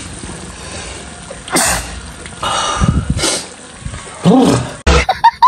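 A man sneezing several times in quick succession, the last sneeze voiced. A faint steady sizzle of samosas deep-frying in oil lies underneath.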